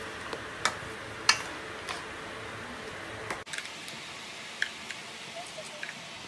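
A metal fork clinking against a stainless steel bowl while mashing banana, a few sharp, irregular clicks.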